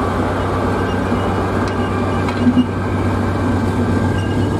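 Train passing close by: the DB class V 60 diesel shunting locomotive's engine running steadily, with the coach wheels rumbling on the rails. A couple of sharp clicks come about two seconds in.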